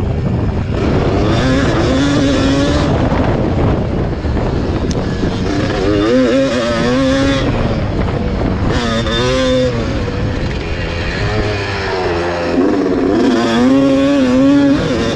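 1991 Yamaha WR250's two-stroke single-cylinder engine revving hard under racing load. Its pitch surges up and falls back again and again, four times.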